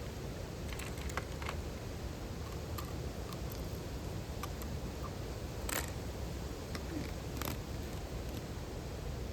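Steady rushing of a small waterfall, with scattered light clicks and taps over it, two of them sharper than the rest.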